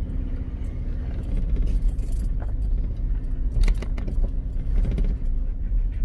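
Ford Ranger pickup's engine running at low speed on a dirt track, a steady low rumble, with scattered clicks and rattles about two and three and a half seconds in.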